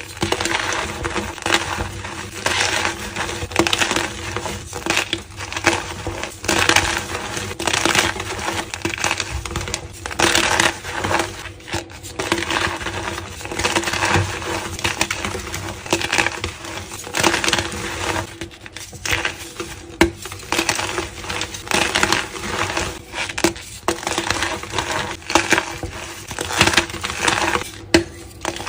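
Blocks of reformed gym chalk being crushed and crumbled, a dense continuous crunching and crackling full of small crisp snaps.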